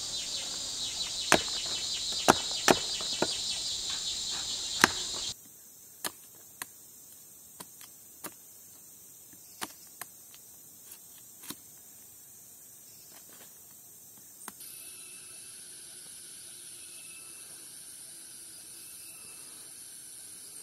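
Tropical forest insects in a loud, steady, high chorus, with sharp clicks and knocks scattered through it. About five seconds in it cuts to a quiet stretch of irregular clicks alone. Later a thinner high insect drone takes over, with a faint short high note repeating every second or two.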